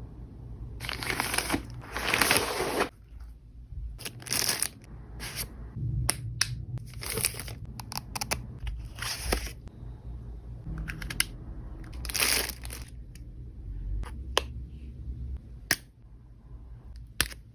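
Plastic and paper packaging being handled, torn open and crinkled in irregular rustling bursts, loudest about a second in and again around twelve seconds in.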